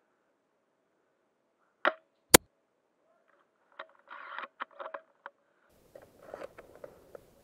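A single sharp airsoft gun shot about two seconds in, followed by scattered clicks and rustling of handled gear.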